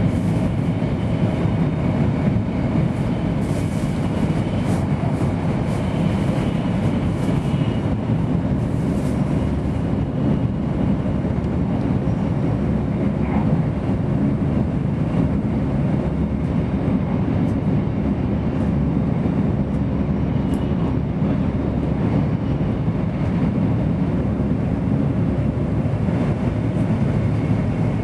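Steady running noise of a Tohoku Shinkansen E2 series train at speed, heard inside the passenger car: an even, deep rumble, with a faint high tone over roughly the first eight seconds.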